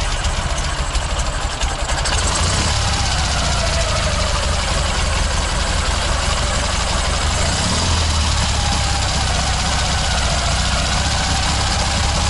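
Homemade buggy's engine idling steadily, with its generator charging the battery.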